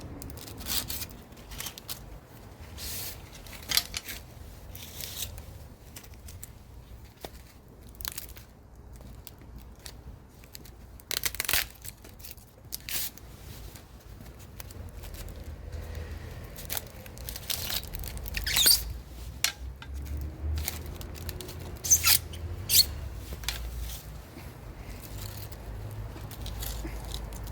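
Irregular tearing, snipping and scraping as salvaged aluminium air-conditioner refrigerant pipe is stripped of its insulation and tape, separating pipe from waste. The sharpest rips come in a few clusters.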